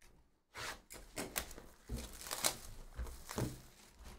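Cardboard trading-card hobby box handled and opened by hand: a series of short rustles and soft knocks, about one every half second, as the box is turned and its lid worked open.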